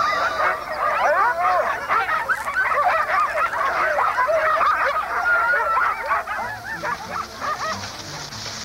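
A team of sled dogs yelping and barking together in a dense, excited chorus of short high yelps, thinning out near the end.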